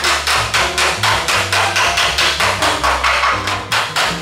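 Body hammer striking sheet metal backed by a dolly in quick, even blows, about five a second, knocking the panel edge that was warped by removing the old skin back into shape.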